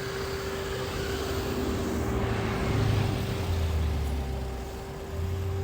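A car driving past on the road, its engine and tyre noise swelling to a peak about three seconds in and then fading away, with a steady hum underneath.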